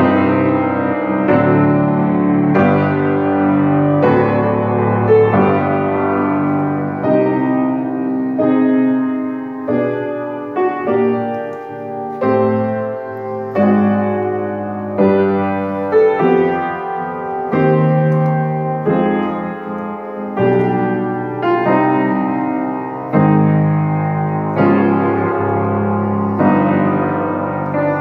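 Steinway & Sons Model A grand piano, rebuilt as new, being played without pause: chords and a melody, with the notes ringing on.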